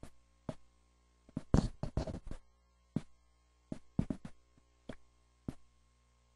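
Irregular sharp knocks and clicks, about a dozen, with a close cluster of them around two seconds in, over a faint steady electrical hum.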